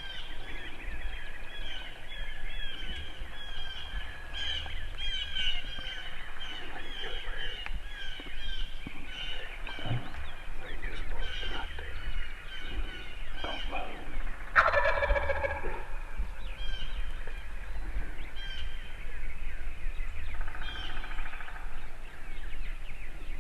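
Wild turkey gobbler gobbling once loudly about halfway through, with a fainter call near the end, over a steady chorus of small songbirds chirping.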